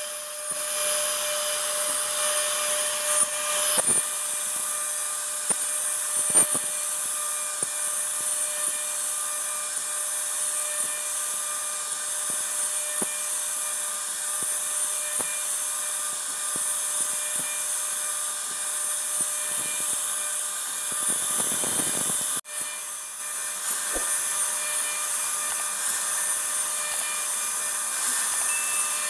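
CNC router spindle running steadily with a high whine while its bit carves a design into wood, with small ticks from the cutting. The sound drops out for an instant about two-thirds of the way through, then carries on.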